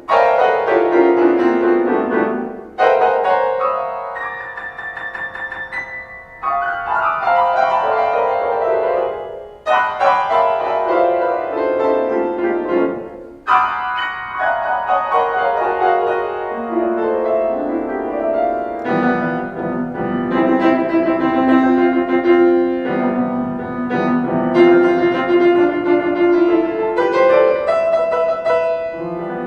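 Solo piano music played in sweeping phrases that pause briefly several times, settling into fuller, steadier low chords for its second half.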